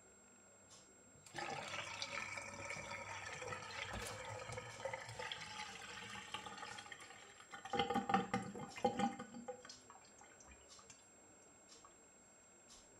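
Water draining from a stainless steel kitchen sink down the plughole. The rush starts suddenly about a second in and turns into loud gurgles and glugs near the end as the sink empties, then stops.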